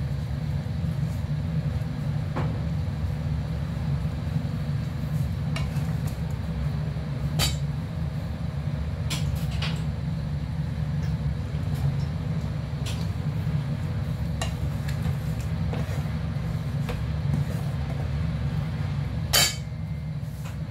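Mung bean stew boiling in a pan on a gas stove: a steady low rumble, with scattered small pops of bubbles bursting and a sharper pop near the end.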